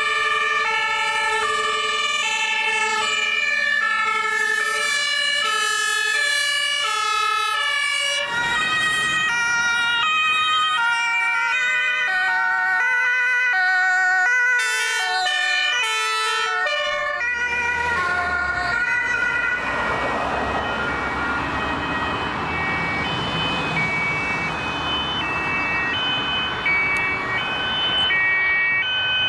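Two-tone sirens (German Martinshorn) of Red Cross emergency vehicles on an emergency run, alternating between two pitches. A second siren joins about eight seconds in, so the two overlap out of step, and from about halfway the rushing noise of the vehicles passing swells while the sirens go on more faintly.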